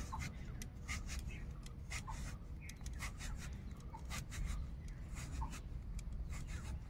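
Raw taro slice being drawn against the edge of a boti, a fixed curved iron kitchen blade, giving a quick irregular run of short crisp scraping cuts, several a second, as one side of the slice is scored into fine strips.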